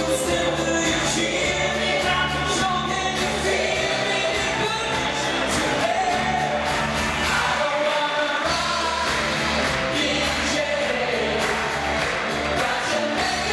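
Live band with drums and electric guitars backing a large choir singing, with a steady beat.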